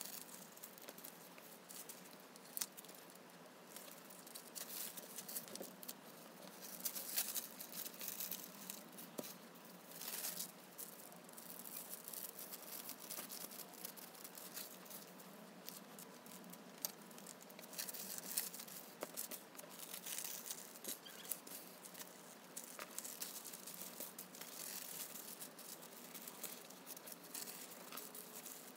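Tissue paper rustling and crinkling in short irregular bursts as it is folded and cut with scissors.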